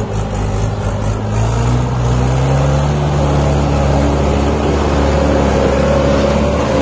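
Mahindra 575 DI tractor's diesel engine revving up over the first couple of seconds, then running steady and loud as it hauls a fully loaded sugarcane trolley through soft soil.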